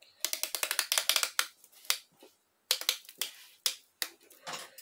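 Ratchet-type piston ring compressor being tightened around a piston, clicking notch by notch to squeeze the rings in. A fast run of ratchet clicks lasts about a second near the start, followed by several shorter bursts of clicks.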